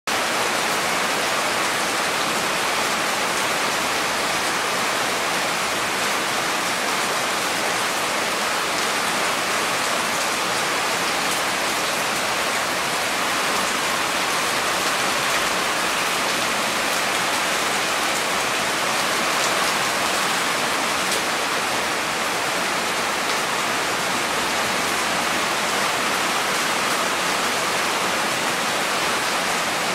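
Heavy rain falling steadily: an unbroken hiss of downpour with a few sharper drop ticks here and there.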